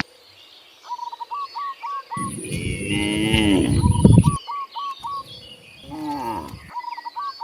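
Cattle mooing twice: a long moo about two seconds in and a shorter one about five seconds in. Between the moos a bird calls in quick runs of short repeated notes, about four a second.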